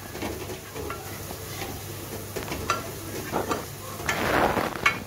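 Sliced onions and chopped tomatoes sizzling in oil in a non-stick pot while a plastic spoon stirs and scrapes across the pan bottom, with a louder stretch of stirring about four seconds in.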